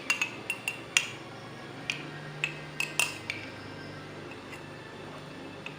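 A metal spoon clinking against a glass as lime juice and sweet soy sauce are stirred together. There is a quick run of ringing taps in the first second, a few more spaced taps over the next two seconds, then it falls quiet.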